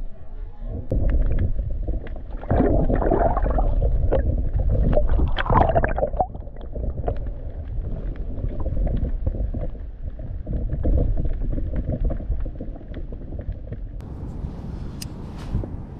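Muffled rush and gurgle of water heard through an underwater camera's housing beneath a kayak, with two louder surges in the first six seconds. Near the end the sound opens out to wind and water from above the surface.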